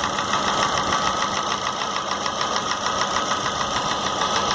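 Chevrolet Corsa four-cylinder engine idling with a fast, regular knocking tick in the cylinder head. The mechanic takes it more for camshaft noise than a hydraulic lifter, though with an ear close it seems to come from the bottom end.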